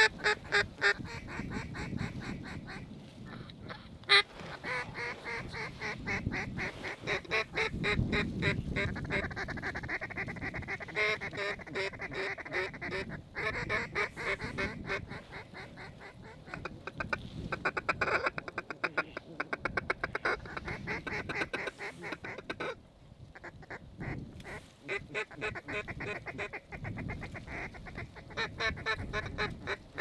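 Ducks and geese quacking and honking in long runs of rapid short notes, with a brief lull about two-thirds of the way through.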